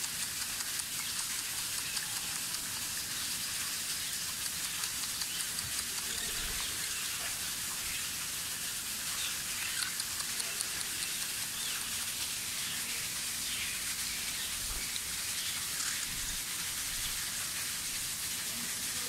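Faint, scattered chirping of many small birds over a steady hiss.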